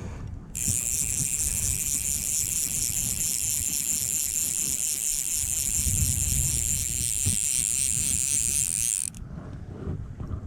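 Click-and-pawl fly reel ratcheting steadily as the spool turns for about eight and a half seconds, then stopping abruptly.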